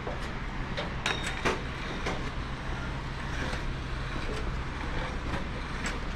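Footsteps of a hiker on a rocky, stepped trail, with scattered sharp clicks and taps over a steady low rumble.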